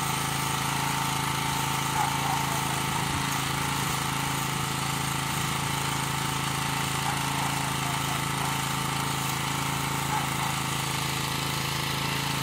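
Electric arc welding on a steel pipe fence post: a steady crackle and hiss from the arc, over the even running of a portable engine-driven generator.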